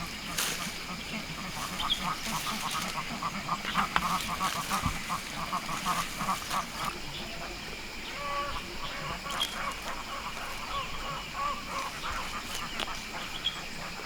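Ducks quacking, many short calls in quick runs, thickest in the first half.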